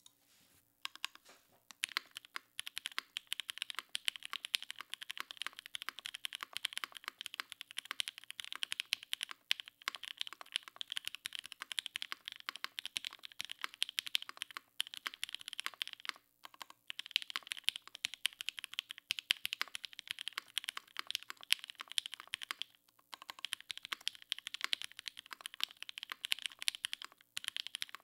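Steady fast typing on a Keycult No.2/65 custom mechanical keyboard, gasket-mounted with an aluminium half plate, Opblack switches on 63.5 g springs and GMK keycaps: a dense stream of keystroke clacks that starts about a second in, broken by a few brief pauses.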